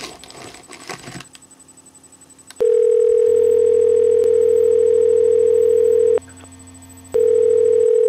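A snack bag crinkling briefly as a hand reaches into it. Then a loud, steady single-pitch electronic ringtone, an incoming video call on the computer, starts a couple of seconds in, breaks off for about a second, and resumes.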